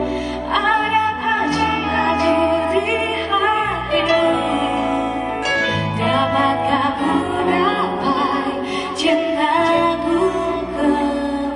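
Live band playing a slow song, with a woman singing drawn-out, wavering lines over long, held bass notes.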